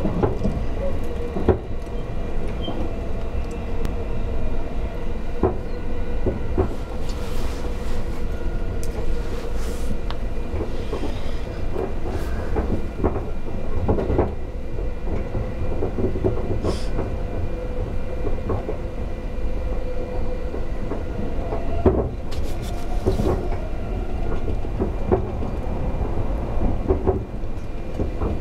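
A JR East 251-series express train running at speed, heard from inside the front car: a steady low rumble with a steady hum, broken by irregular clicks and knocks of the wheels over rail joints and points.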